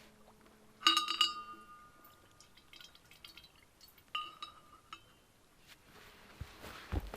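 Hard objects knocking together with ringing clinks: a loud double clink about a second in, a second ringing clink near four seconds, light ticks and taps between, and a couple of low thumps near the end.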